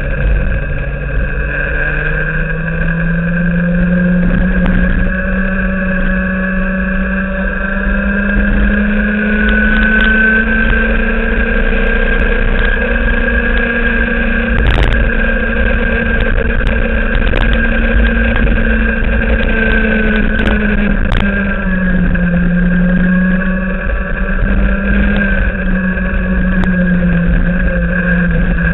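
Racing kart engine heard from onboard the kart, its pitch rising as it accelerates about two seconds in, holding high, then dropping briefly about three-quarters through before climbing again. A low rumble of wind on the microphone lies under it, with a few sharp knocks midway.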